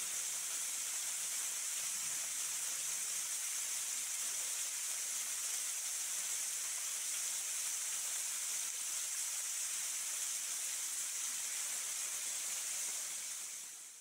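Waterfall pouring onto a shallow rocky pool, a steady hiss of falling water and spray; it fades out near the end.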